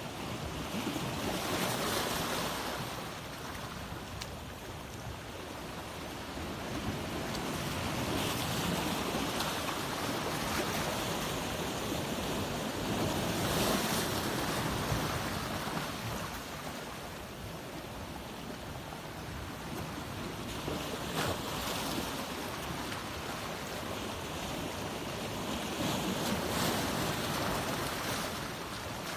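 Ocean surf: waves wash in and draw back in slow swells every several seconds, with a steady hiss between them.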